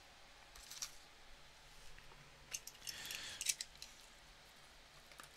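Faint scattered clicks and rustles of a cardboard trading-card box being picked up and handled, busiest about two and a half to three and a half seconds in.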